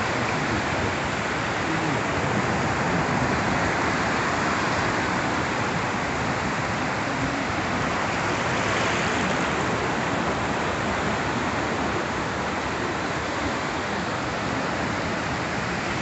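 Ocean surf on a flat sandy beach: a steady wash of small breaking waves running up over the shallows.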